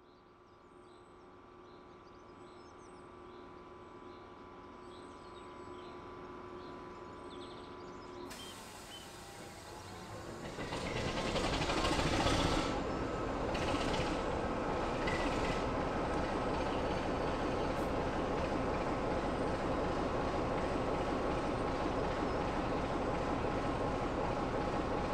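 BR Class 25 diesel locomotive's Sulzer six-cylinder engine running while the locomotive stands still. It starts faint, and about ten seconds in the engine noise grows much louder, then stays steady.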